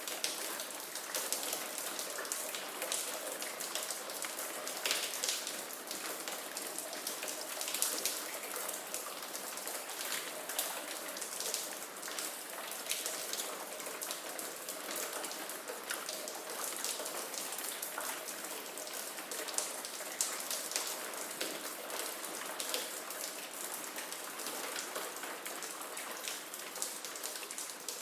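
Steady rain falling on a hard surface, a dense hiss sprinkled with many small clicks of individual drops.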